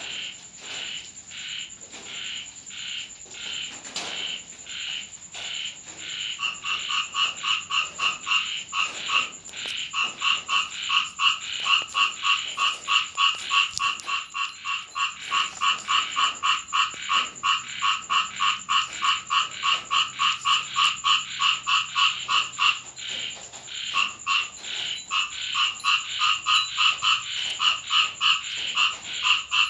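Frogs croaking in a fast, even rhythm of several calls a second, with a second, lower-pitched croaking joining in about six seconds in. A steady high-pitched tone runs underneath.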